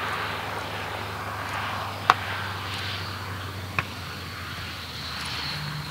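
Beech Model 17 Staggerwing's radial engine and propeller running steadily as the biplane flies low past. Two sharp clicks cut through, about two seconds in and again near four seconds.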